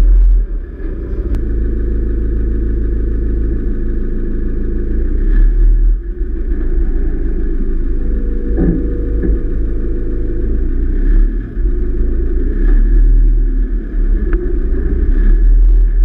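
A vehicle's engine running as it drives slowly over a sandy track, under a heavy steady low rumble.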